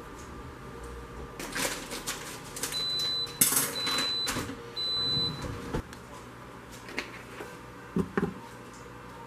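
Instant Pot IP-DUO control panel: button presses and handling clicks with three short high beeps as the sauté function is switched on and set to More, then two dull knocks near the end.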